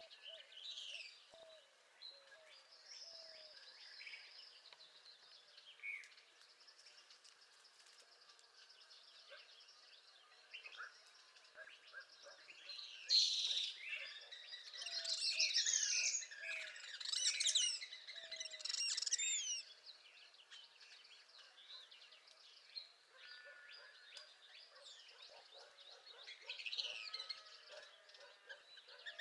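Northern parula and other songbirds singing: scattered high chirps and trills, with a denser, louder run of overlapping song in the middle, over a faint steady outdoor hiss.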